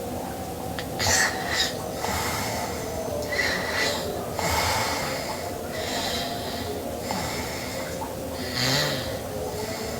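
A sleeping girl snoring: a string of noisy, hissing breaths, one every second or two, the loudest about a second in and again near the end.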